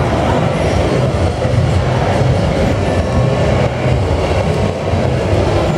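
Steady rumbling background din of a crowded trade-fair hall, with no single sound standing out.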